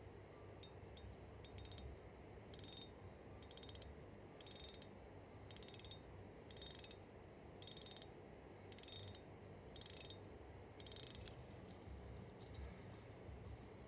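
Shimano 19 Vanquish C3000HMG spinning reel making faint, fine ratchet-like clicking: a few single clicks, then about nine short bursts of rapid ticking roughly a second apart.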